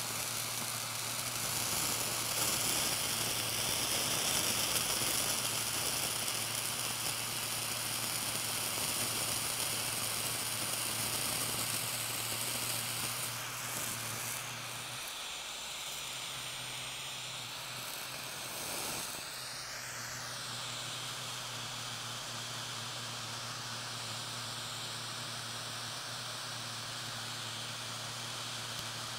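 Tiny blowtorch flame hissing steadily as it plays on and melts a wedge of blue cheese. The hiss shifts about halfway through, with a brief rising sweep.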